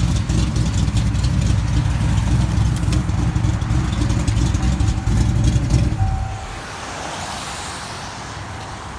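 Fox-body Ford Mustang engine running with a knocking tick, which the owner suspects is either rod knock or lifter noise. About six seconds in, the engine is shut off and its rumble stops.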